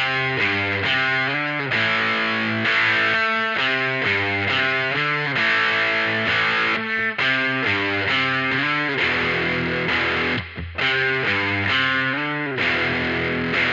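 Electric guitar played through distortion and effects pedals, strumming a riff of chords that change about every half second, with a brief break about ten and a half seconds in.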